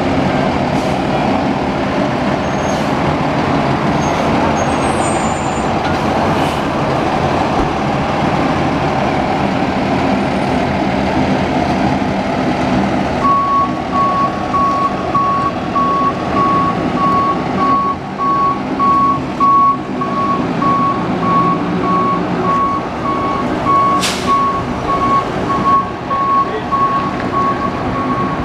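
2012 KME pumper fire engine's diesel engine running as the truck backs up, its reversing alarm beeping steadily from about halfway through. A short hiss of air brakes comes late on.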